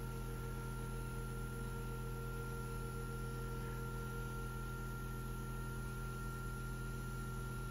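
Snailax shiatsu massage cushion's electric motor humming steadily as its kneading nodes run through the full-back shiatsu program.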